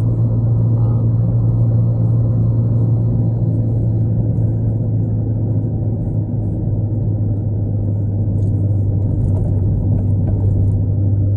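Steady low rumble of a car driving, heard from inside the cabin: engine and road noise with a strong, even hum.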